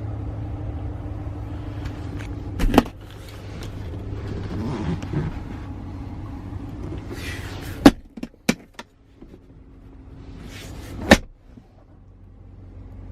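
Steady low hum of a pickup truck's cab with the engine running, broken by five sharp clicks and knocks. The loudest knocks come about eight and eleven seconds in, and the hum drops away after the first of them and slowly comes back.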